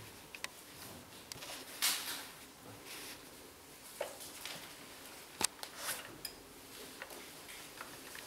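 Faint handling sounds of cloth face masks being folded, smoothed and patted flat on a padded ironing board, with soft fabric swishes and one sharp click about five seconds in.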